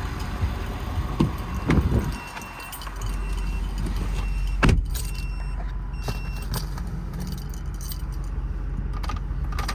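Ford 6.7 Powerstroke diesel in an F-550 idling steadily after a remote start, with keys jangling and handling clicks at first. A short electronic chime beeps several times, and there is one loud thump about halfway through.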